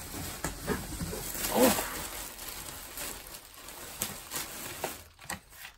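Clear plastic packaging crinkling and rustling as fabric is handled inside it, with scattered sharp crackles. A short pitched sound comes about one and a half seconds in.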